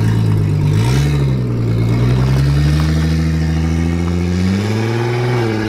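Toyota Supra Mk4's inline-six engine accelerating away, its pitch rising steadily through a gear, then dropping briefly near the end at a gear change.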